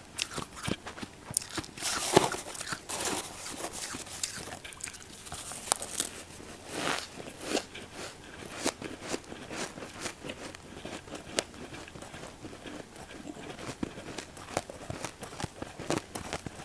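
Close-miked biting and chewing of powdery freezer frost, a run of soft crunches, with louder bites about two seconds in and again about seven seconds in.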